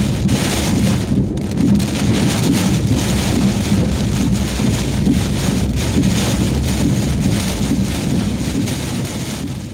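Hurricane-force wind and heavy rain lashing a moving car, with wind rumbling on the microphone in gusts. The sound begins to fade out near the end.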